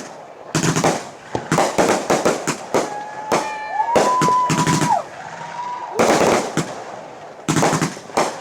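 Consumer fireworks going off in rapid clusters of sharp cracking bangs, with a steady whistle-like tone held for a second or two in the middle.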